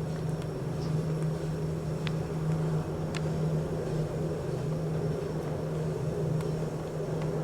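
Lift car travelling between floors: a steady low hum from the lift machinery, with a couple of faint ticks about two and three seconds in.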